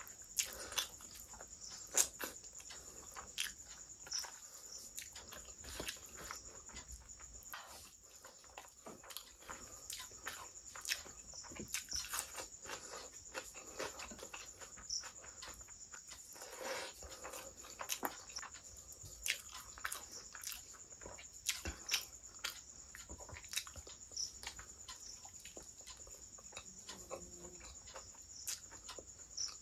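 Eating sounds of a curry and rice meal eaten by hand: chewing and wet mouth clicks, with hands mixing rice and pulling mutton from the bone, coming as irregular short clicks.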